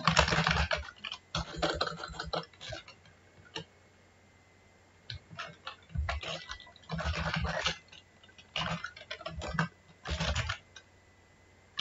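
Computer keyboard typing in short bursts of keystrokes, with a pause of a second or two about midway.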